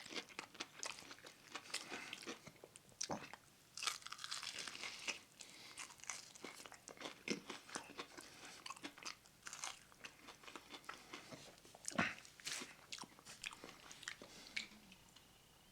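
Biting and chewing chicken wings close to the microphone: irregular crunching and crackling bites, with one sharper crunch about twelve seconds in.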